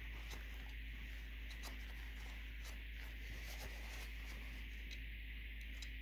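Faint rubbing and scattered light clicks of a paper towel wiping old grease out of a plastic blend door actuator housing, over a steady hiss and low hum.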